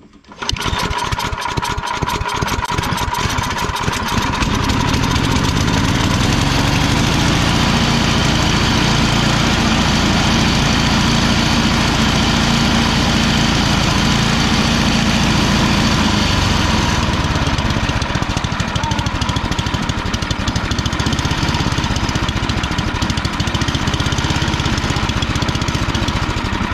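A Tecumseh Snow King single-cylinder four-stroke snowblower engine catches on a pull of its repaired recoil starter and runs. For the first few seconds it fires unevenly, then it settles into a steady, even run. That it starts shows the rebuilt recoil starter works.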